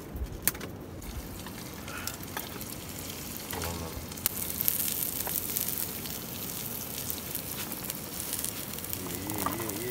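Onions and spices frying in oil in a cast-iron double skillet over an open wood fire, a steady sizzle that grows louder about four seconds in, with a few sharp clicks.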